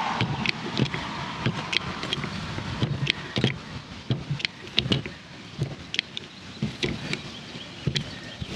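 TEMCo hydraulic cable lug crimper being pumped by hand, clicking and clunking about twice a second with each stroke as its jaws close on a lug on 2 AWG battery cable.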